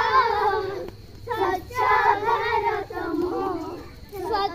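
Group of children singing a game rhyme together as they circle, in short sung phrases with brief breaks between lines.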